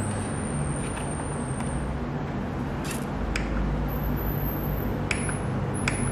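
Steady low background hum with a few faint, light clicks and taps spread through it as a pistol is handled on a digital kitchen scale and the scale's buttons are pressed.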